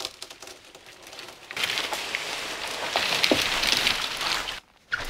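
A slender tree toppling through the surrounding branches and foliage: leaves and twigs rustle and swish for about three seconds, starting about a second and a half in, with a couple of sharp cracks, then stop abruptly.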